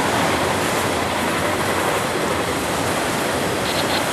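CSX freight train of autorack cars rolling past, steady rumble and rush of steel wheels on the rails, with a few brief high squeaks near the end.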